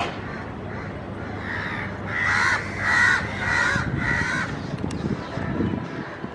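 A crow cawing: a run of about five caws roughly half a second apart, starting about a second and a half in, over a steady low background rumble.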